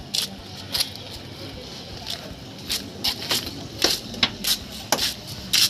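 Irregular sharp scuffs and taps, about one or two a second, of shoes stepping on a gritty concrete surface as a person walks around a vehicle.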